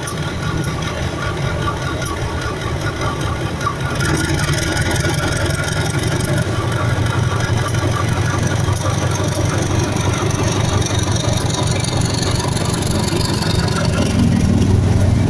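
Diesel railcar (KRD) engine running steadily, getting louder about four seconds in and again near the end.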